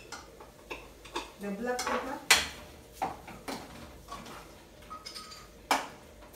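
Metal spoon clinking and scraping against a stainless saucepan, with cooking utensils and jars knocking on a kitchen counter: a handful of sharp, irregular clinks, the loudest about two seconds in.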